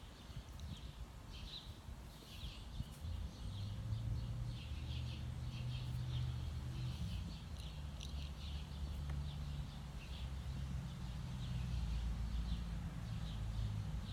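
Small birds chirping in short, high, repeated bursts. About three seconds in, a low, steady engine hum comes in and keeps running, from a truck working on the street.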